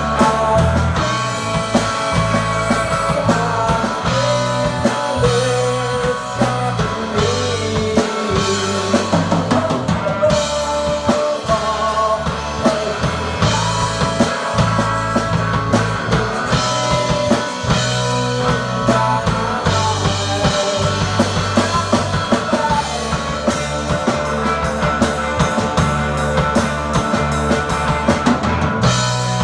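Rock band playing live in a room: electric guitar over a drum kit played close by.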